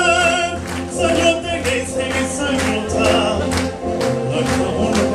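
A man singing with vibrato into a microphone over backing music with a steady beat.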